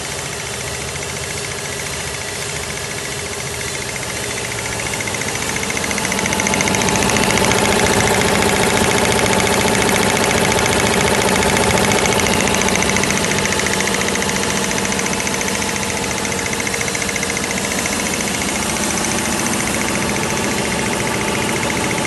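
Two-stage reciprocating air compressor driven by a Havells electric motor, running with a steady mechanical clatter. It grows louder about five seconds in, then eases slightly later on.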